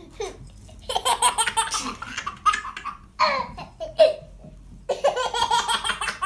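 A baby laughing in several bursts.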